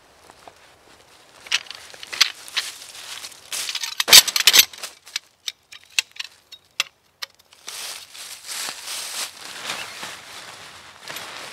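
Rustling of a jacket being pulled on, then crunching in dry fallen leaves, loudest about four seconds in, followed by a run of sharp clicks and snaps and more rustling in the leaves.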